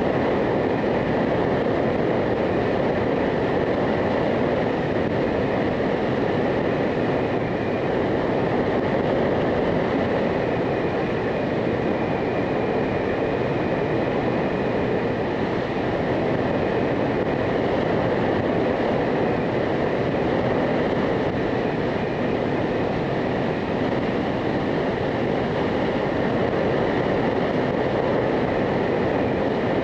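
Motorcycle riding at a steady speed: engine and wind rushing together in one loud, unbroken noise, with a faint high steady whine.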